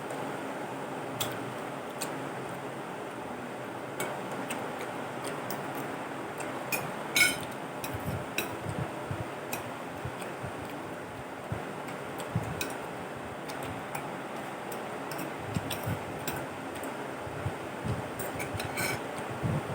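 Scattered light clicks of cutlery against a plate, a sharper cluster about seven seconds in and more near the end, over a steady background hum.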